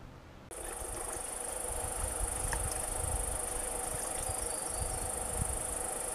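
Insects buzzing in a steady high-pitched drone that starts abruptly about half a second in, with wind rumbling on the microphone underneath.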